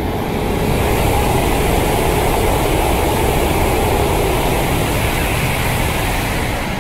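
E5 series Shinkansen running through a station at high speed without stopping: a loud, dense rush of air and wheel noise that swells in the first second, holds, and begins to fade near the end as the train recedes.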